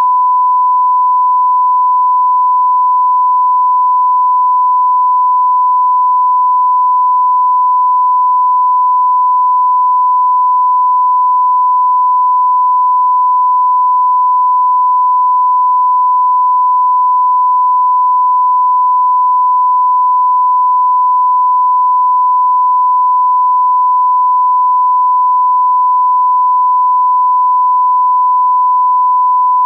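Broadcast test tone that accompanies a television test card: a single pure 1 kHz reference tone, held unbroken at one pitch and level.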